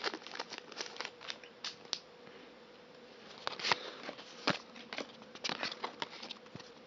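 Crinkling of a foil Pokémon card booster pack being opened, with its cards handled: a string of short crackles and clicks over a faint steady hum.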